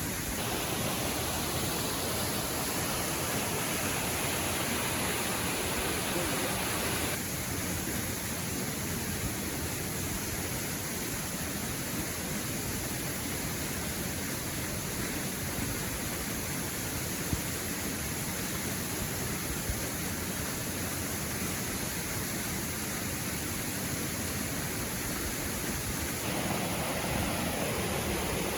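Steady rush of a waterfall and river flow. The character of the rush shifts abruptly about 7 seconds in and again near the end.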